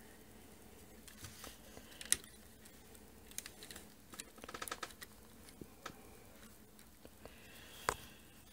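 Faint clicks and taps of metal latch needles being worked by hand in the plastic needle bed of an LK150 knitting machine, with a quick run of small ticks about halfway through and a few sharper single clicks.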